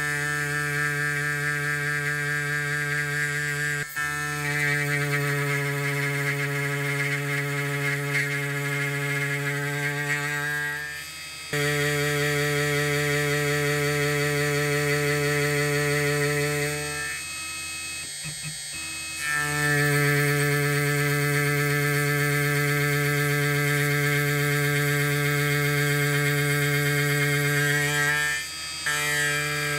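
CNC router spindle driving an end mill through a metal block, giving a loud, steady pitched whine of the cut. The sound dips briefly a little past 11 s and near the end, and goes quieter for about two seconds around 17 to 19 s, as the cutter moves between passes.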